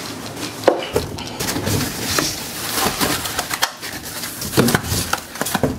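Cardboard box and plastic packaging rustling and crinkling as wrapped chair parts are handled and pulled out, with scattered clicks, knocks and short squeaks.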